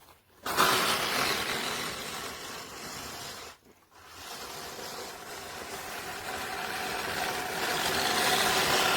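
A 16-inch, five-blade manual push reel mower's reel spinning and clipping grass as it is pushed, giving a whirring sound in two runs. There is a brief break about three and a half seconds in, and the second run grows louder toward the end.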